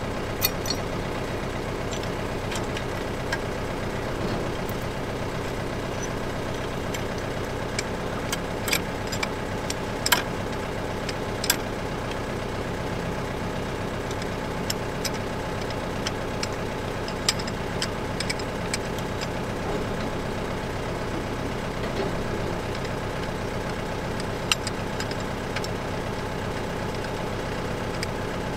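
John Deere 4052 compact tractor's diesel engine idling steadily, with scattered sharp metal clicks and clinks as the top link of the three-point hitch is worked by hand.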